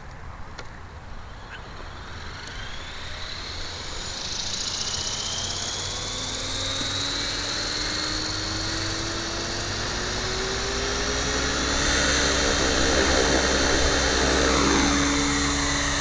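Gaui RC helicopter spooling up: the motor and rotor whine rises steadily in pitch and grows louder for about ten seconds, then holds at a steady head speed near the end.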